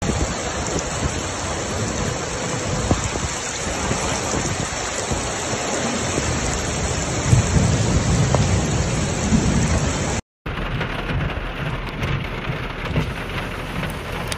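Heavy rain and floodwater rushing through a street, a dense steady noise with a low rumble under it. It drops out briefly about ten seconds in, then resumes thinner.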